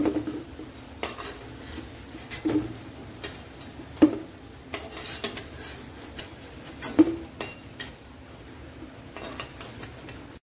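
Steel spatula clinking and scraping against a metal kadhai while fried banana koftas are lifted out of the oil, over the faint sizzle of hot oil. Sharp clinks with a short ring come every second or two, the loudest about four and seven seconds in. The sound cuts off abruptly near the end.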